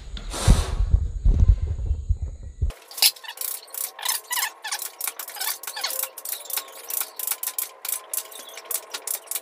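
A low rumble of camera handling, then from about three seconds in a claw hammer striking a modified flathead screwdriver against a compressor motor's steel stator: quick, irregular metal-on-metal taps, about two or three a second, with a ringing after them, as the copper windings are cut loose.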